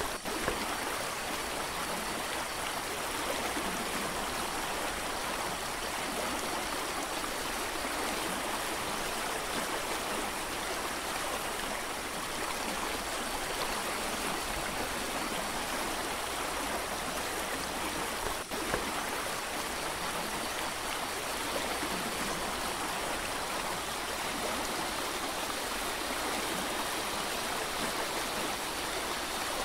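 Mountain creek rushing steadily over rocks, broken by a momentary gap near the start and another about 18 seconds in.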